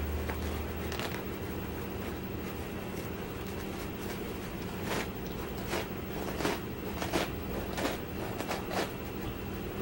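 Scattered light clicks and scrapes of a plastic bottle being picked up and handled, over a steady low hum.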